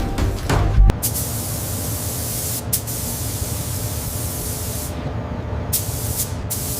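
Steady spraying hiss, like a compressed-air spray gun, starting about a second in and breaking into a few short bursts near the end.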